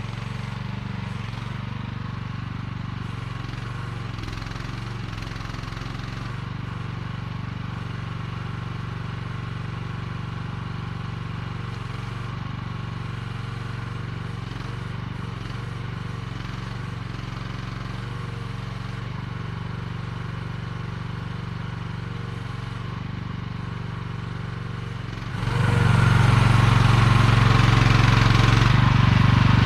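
AGT QH12R mini excavator's engine running steadily, then suddenly much louder near the end as it is throttled up or put under load.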